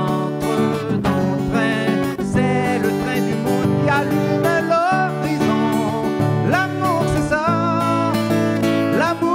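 Live acoustic guitar strumming chords under a slow sung melody, the voice held on long notes with vibrato.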